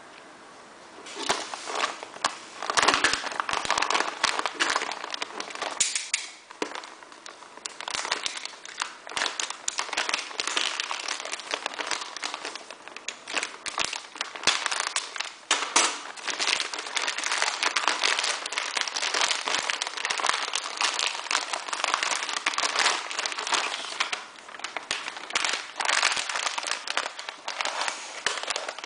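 Plastic packaging crinkling and crackling, with many sharp clicks, as a poly mailer bag is slit open with a utility knife and a clear plastic bag of filament coils is handled. The crinkling starts about a second in.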